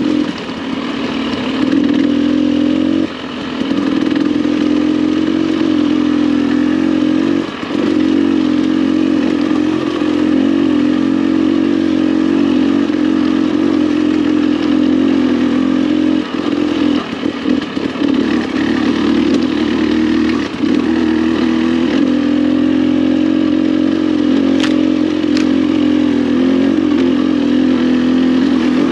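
Dirt bike engine running under steady throttle on a single-track trail, easing off briefly a few times. Two sharp clicks come close together near the end.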